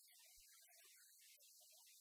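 Near silence: only a faint high hiss.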